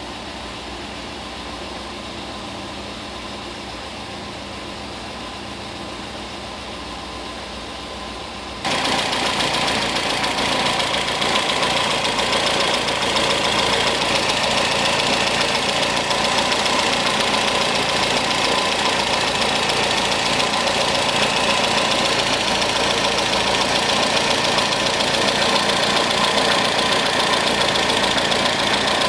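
MGB's 1.8-litre four-cylinder B-series engine idling steadily on twin SU carburettors, with the air cleaners off. About nine seconds in it becomes much louder and brighter, heard close to the open carburettor intakes, where the front carburettor is drawing no air while the rear one draws normally.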